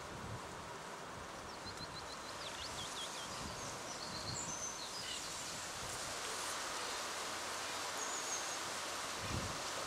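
Steady rustling hiss of wind through reeds and grass, with faint high chirps and short calls of small birds scattered through it, and a soft low thump near the end.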